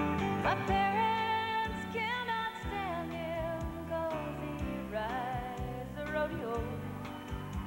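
Live country song played by a band with acoustic guitar, bass and drums, and a woman singing a wavering, held melody.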